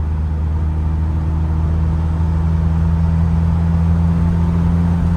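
BMW E36's engine running steadily while driving at an even speed, with road noise underneath.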